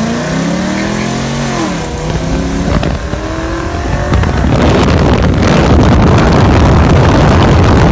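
Muscle car engine accelerating hard from a stop, its pitch climbing, dropping at a gear shift about two seconds in, then climbing again. From about four seconds in, a loud rush of wind and engine noise takes over as the car gathers speed.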